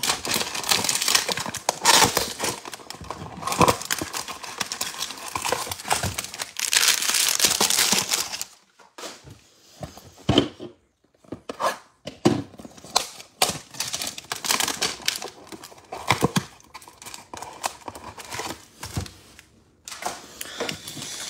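Clear plastic card-pack wrapping crinkling and tearing for about eight seconds, then quieter rustling and a few light knocks as trading cards and a box are handled on the table.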